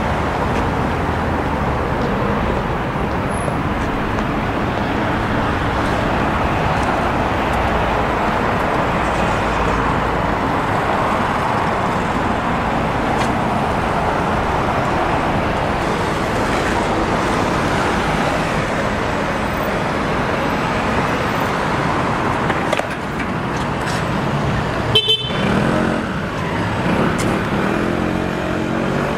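Steady road traffic: cars and buses passing continuously. A short, sharp sound about 25 seconds in, then a city bus's engine rising and falling as it passes close near the end.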